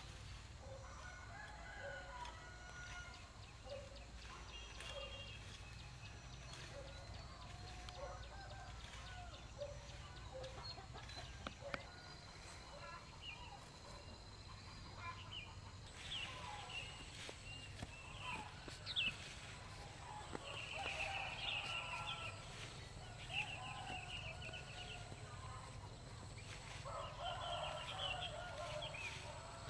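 Chickens: hens clucking in short notes about once a second, then louder, higher calls and a rooster crowing in the second half.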